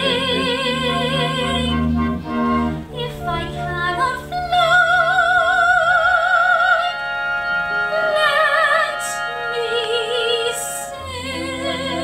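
A soprano sings long, high held notes with a strong vibrato over instrumental accompaniment.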